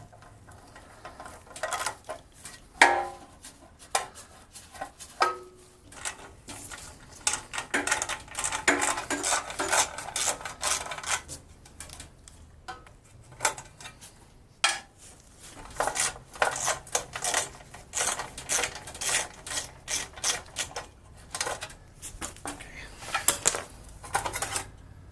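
Metal hand tools and small metal parts clinking and clattering in irregular bursts, as parts are handled and taken off a small engine's fuel system.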